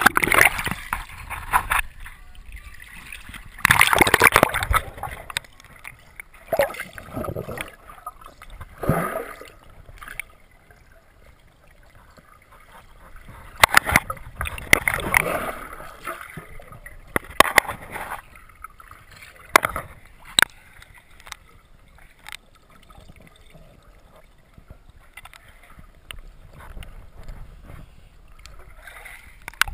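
Water sloshing, gurgling and splashing close to the microphone in irregular swells, with occasional sharp knocks.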